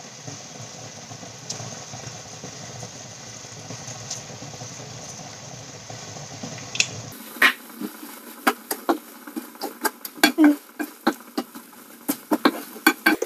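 A steady hiss of food sizzling on the hob. After about seven seconds, a wooden spatula stirs a broccoli and chicken stir fry in a wok, with quick irregular knocks and scrapes against the pan.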